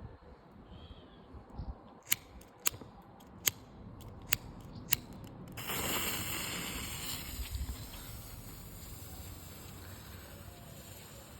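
Five sharp clicks spaced about half a second apart, then, about five and a half seconds in, a green smoke bomb catches and hisses, strongest for the first second and then settling into a steady hiss as it pours out smoke.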